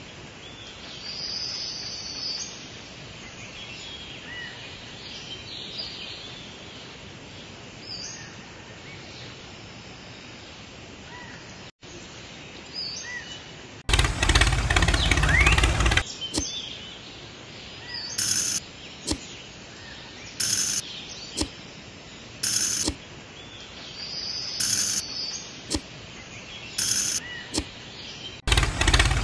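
Outdoor ambience with small birds chirping. About halfway through, a loud two-second burst of noise cuts in, followed by several short loud bursts spread over the second half.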